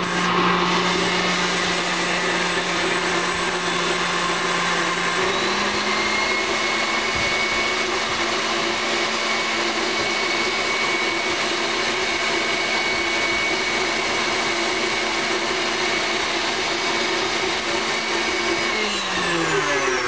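KitchenAid tilt-head stand mixer running with its wire whip, beating pudding mix so it thickens. It is a steady motor whine that steps up in pitch about five seconds in as the speed is raised, then winds down and stops near the end as it is switched off.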